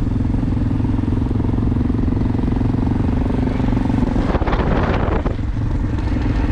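A motor vehicle's engine running steadily, a low hum of fast, even pulses, with a louder rush of noise for about a second near the middle.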